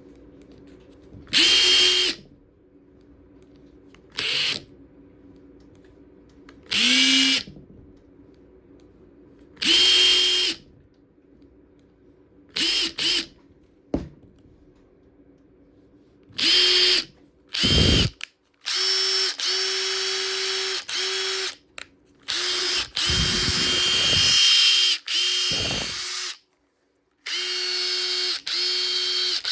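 Makita TD136D cordless impact driver running unloaded in repeated trigger pulls: short bursts of motor and gear whine at first, then longer runs with brief stops as the motor spins down and starts again.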